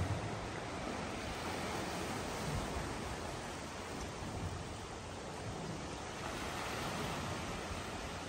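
Small sea waves washing steadily over a rocky, cobbled shore.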